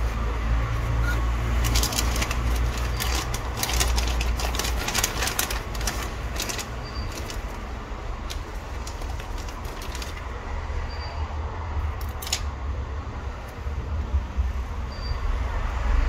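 Crinkling and rustling of a shiny plastic bag and packaging being handled, densest in the first half, with a few more crackles later, over a steady low hum.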